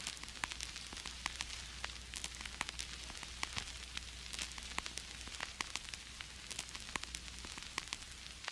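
Vinyl record surface noise: a steady hiss scattered with irregular crackles and pops, over a faint low hum.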